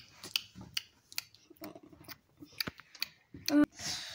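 A child making pretend chewing noises with her mouth as the toy dragon 'eats' its medicine: soft, irregular wet clicks and smacks, with a brief hummed vocal sound near the end.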